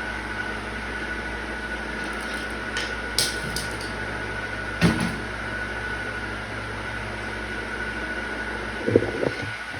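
Steady background hum with a faint high whine, broken by a few light clicks about three seconds in and a single knock about five seconds in: handling noise as a leather saddlebag is moved about and shown.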